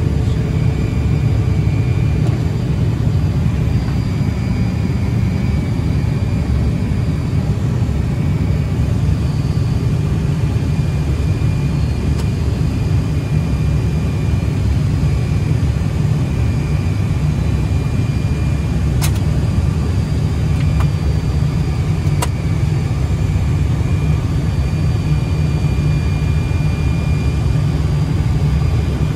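Steady low rumble on the flight deck of a Fokker 100 jet airliner on approach, from airflow and its rear-mounted Rolls-Royce Tay turbofans, with a faint high steady whine over it. Two brief clicks come about three seconds apart in the later part.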